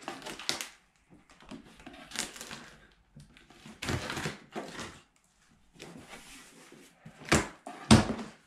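A large cardboard shipping box being handled: scattered rustling and scraping, then two sharp thumps about half a second apart near the end.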